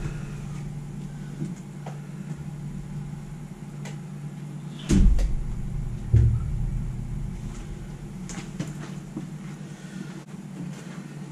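A steady low hum with a few light clicks, broken by two loud dull knocks, one about five seconds in and another about a second later.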